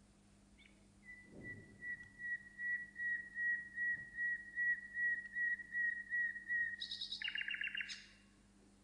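A songbird singing: one long, even trill held at a single pitch, pulsing a few times a second, then a quicker rattling phrase with higher notes near the end.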